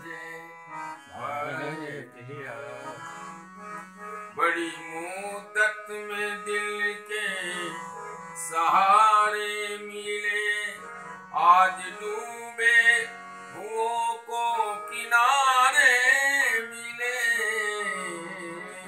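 Harmonium playing a melody over a steady low held note, with a man singing long, wavering vocal phrases that swell and fall back several times.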